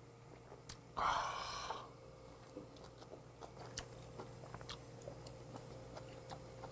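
A sharp breathy exhale about a second in, then soft close-up chewing with many small wet clicks as a hot piece of poached webfoot octopus (jjukkumi) is eaten.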